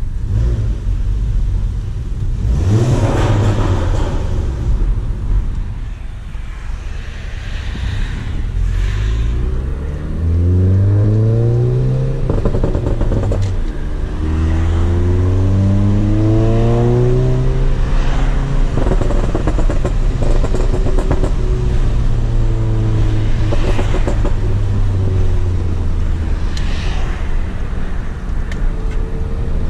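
Volkswagen Golf GTI Mk7's turbocharged 2.0-litre four-cylinder, APR Stage 2 tuned with a CTS downpipe, accelerating through the gears of its six-speed manual, heard from inside the cabin. The engine note rises, breaks at each shift and rises again about three times, then settles to a steady cruise.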